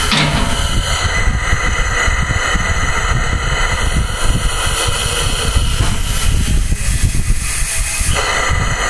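Compressed air hissing through a hydraulic control valve and bucket cylinders as they are pressurised to curl the bucket, over a steady low mechanical drone. The hiss swells from about six seconds in and drops away near the end.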